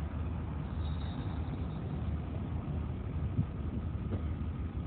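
Covered hopper cars rolling slowly along the track behind a GP16 diesel switcher, a steady low rumble of wheels and engine. One brief knock a little past three seconds in.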